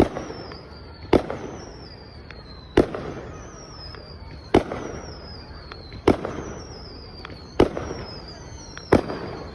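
Aerial firework shells bursting: seven sharp bangs, about one every one and a half seconds, each trailing off in a rumbling echo.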